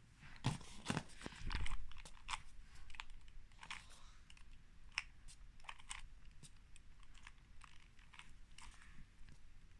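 2x2 Rubik's cube being twisted to scramble it: irregular plastic clicks and rattles as the layers turn, busiest in the first two seconds.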